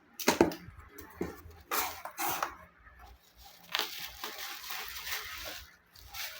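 Toy car packaging being handled: a few sharp knocks and taps, then nearly two seconds of crinkly rustling.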